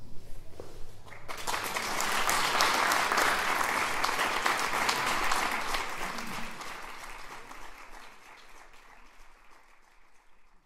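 Audience applauding at the end of a song, the clapping swelling about a second in and then fading away toward the end.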